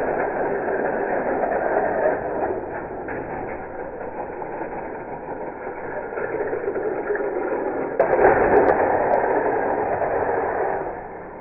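Die-cast toy cars rolling down a wooden gravity race track, a steady rumbling rattle of small wheels on the track surface. It grows louder about eight seconds in and drops off again just before the end.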